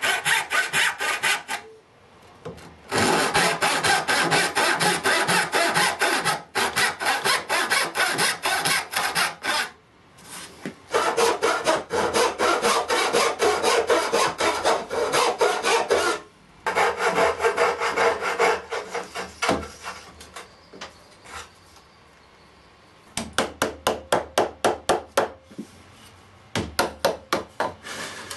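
Hand backsaw cutting a wooden board: runs of quick push-pull strokes, several a second, broken by short pauses, with slower, lighter strokes near the end.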